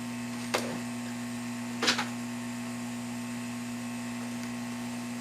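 Hot-air tool running with a steady electric hum while it heats a section of the circuit board, with two short clicks about half a second and two seconds in.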